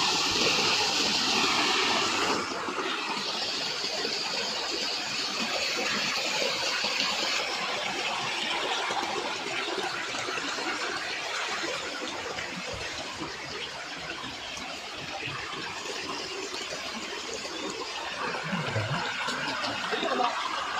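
Shallow stream rushing and splashing over rocks, a steady water noise that is louder for the first two seconds or so and then settles.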